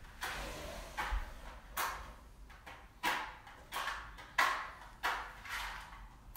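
Match struck again and again against the side of a matchbox: about eight short, sharp scrapes, roughly two-thirds of a second apart.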